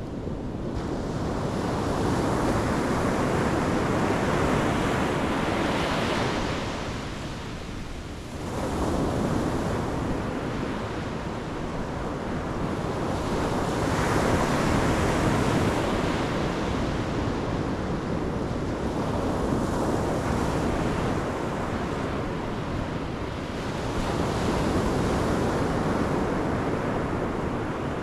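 Pacific Ocean waves breaking on the shore in slow swells, the surf rising and falling every several seconds, with some wind on the microphone.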